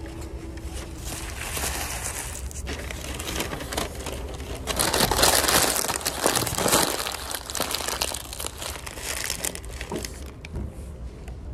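Paper food wrapper being crumpled and crinkled, with dense crackling that is loudest for about two seconds near the middle.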